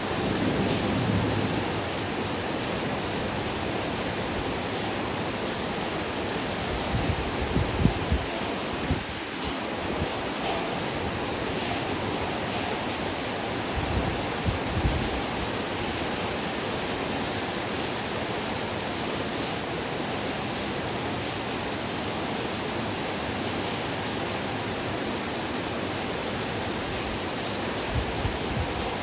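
Heavy rain falling steadily in a dense, even hiss, with a few brief low thumps.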